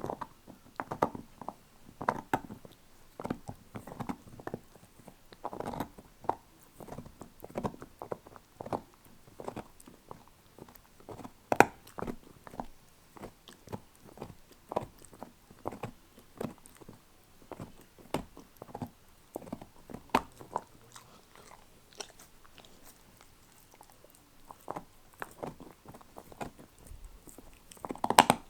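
A dog gnawing a beef neck bone: irregular crunches and sharp clicks of teeth on bone, with one louder crack about twelve seconds in and a burst of heavier crunching near the end.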